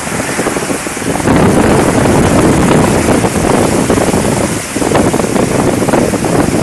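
Heavy rain pouring in strong, gusty wind, with the wind buffeting the microphone. The gusts swell about a second in and ease briefly just before five seconds.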